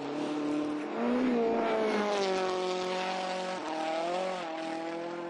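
Citroen C4 WRC rally car's 2.0-litre turbocharged four-cylinder engine running under way, its note rising and falling with the revs, with a brief dip about a second in and shifts in pitch after about three and a half seconds.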